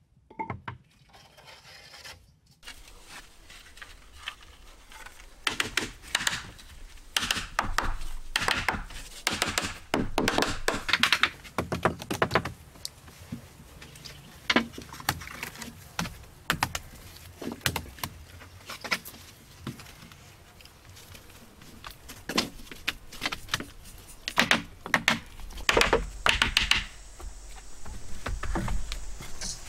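Irregular taps, knocks and scrapes of hands working wet mud against split-bamboo walls, with a run of louder thuds near the end.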